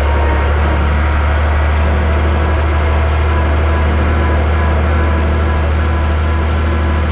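Tractor engine running steadily with a strong, unchanging low hum.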